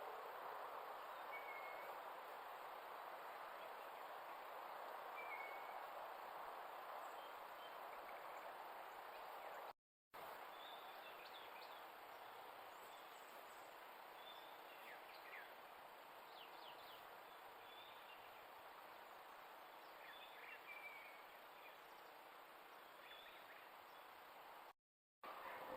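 Faint outdoor ambience with the steady hiss of a trail camera's microphone and scattered, brief bird chirps. The sound cuts out completely twice for a moment.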